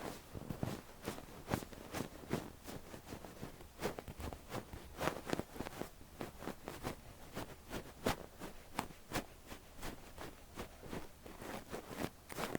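Fluffy down-tipped ear cleaner brushing over an ear at the microphone, in quick, uneven strokes, two or three a second.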